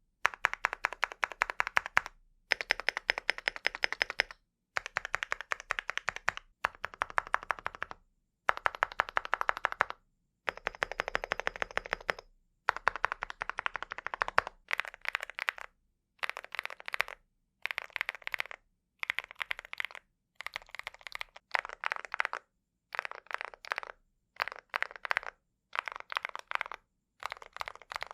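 Typing on a mechanical keyboard fitted with Cerakey ceramic keycaps: fast runs of key clacks in bursts of a couple of seconds, with short pauses between them. In the second half the bursts turn shorter and choppier.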